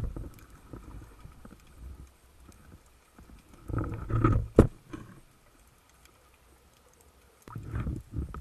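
Muffled underwater knocks and rumbles from a speargun and its mounted camera while a speared European sea bass struggles on the shaft and the line is hauled in, with one sharp click about four and a half seconds in.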